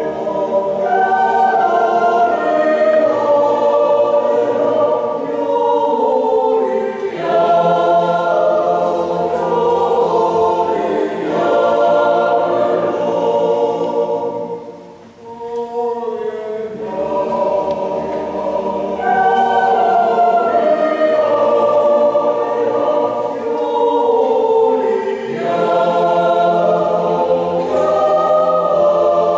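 Swiss yodel club choir of men's and women's voices singing a slow song in parts, with long held chords. The singing breaks off briefly about halfway through, then resumes.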